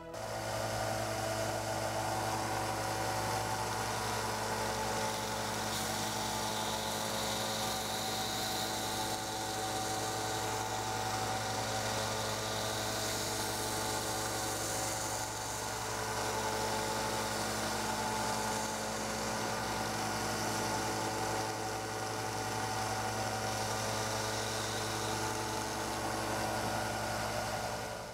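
Small benchtop bandsaw running steadily with a low motor hum, its blade hissing as it cuts a small wooden block round on a centre pivot pin.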